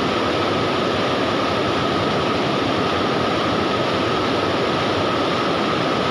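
Steady rush of river water pouring over a low concrete weir into the pool below.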